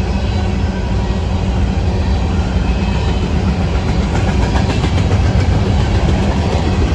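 Amtrak diesel passenger locomotive standing idle, a steady low engine rumble.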